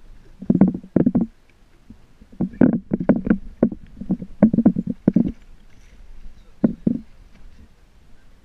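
Water slapping against the hull of a small drifting fishing boat, in irregular clusters of quick knocks about once a second.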